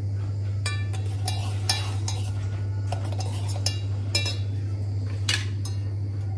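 A spoon clinking against cups and kitchenware while coffee is made: several separate sharp clinks, some ringing briefly, over a steady low hum.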